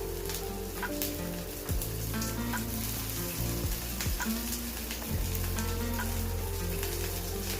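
Breaded vegetable kebabs shallow-frying in hot coconut oil: a steady sizzle with scattered crackles and pops. Soft background music with a low bass line plays underneath.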